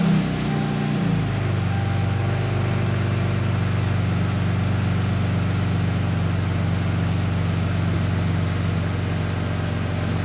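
Lexus SC300's 2JZ straight-six engine just after starting, its revs flaring and dropping back within about the first second, then idling steadily.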